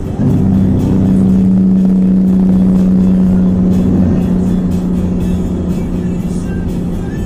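Steady low drone of traffic at highway speed, with a semi-truck running in the next lane; the pitch drops slightly about four seconds in as the speed eases.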